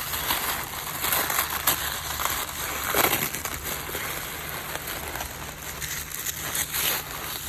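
Packaging crinkling and rustling as a shoe is unwrapped from its wrapping. It is an irregular crackle with a few louder crunches: about a second in, around three seconds in, and near the end.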